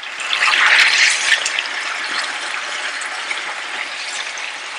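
Chicken pieces and thick gravy sizzling in a tawa over a high flame as the moisture cooks off, louder in the first second or so and then steady.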